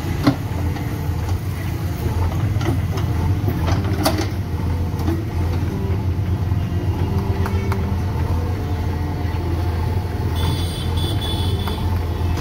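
Diesel engines of a Massey Ferguson tractor and a JCB 3DX backhoe loader running steadily while soil and stones are loaded into the tractor's trolley, with a few sharp knocks from the load. A short high-pitched beeping comes in about ten seconds in.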